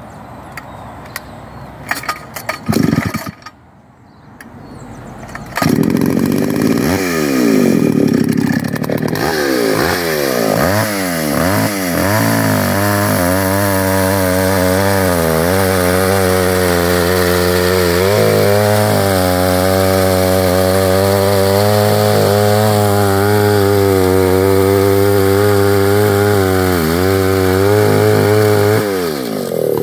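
McCulloch SP105 two-stroke chainsaw, back in use after six years with its tank and carburettor cleaned. It starts about six seconds in after some knocks, is revved up and down several times, then runs at full throttle cutting through a log round, its pitch sagging briefly under load. It drops back toward idle near the end.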